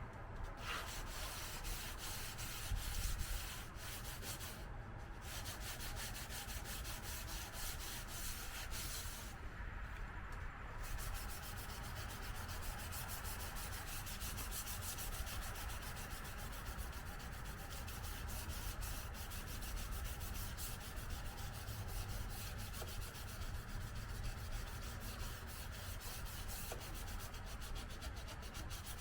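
Sandpaper rubbed by hand over a car body panel in quick back-and-forth strokes, a steady scratchy rasp with brief breaks about five and ten seconds in.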